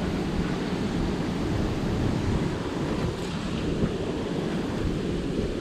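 Steady rush of churning white water in the canal below, mixed with wind rumbling on the microphone.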